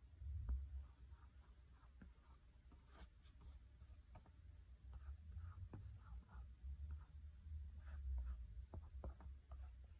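Faint scratchy strokes of a paintbrush on a canvas propped on an easel, with a few light ticks and a low rumble as the canvas is brushed.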